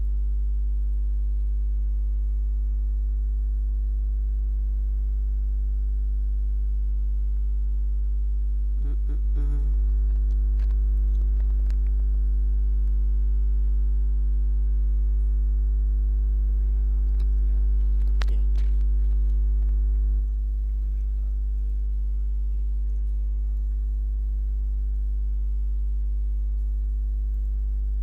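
Steady electrical mains hum: a loud low buzz with a stack of overtones. A couple of faint brief sounds come through about nine and eighteen seconds in.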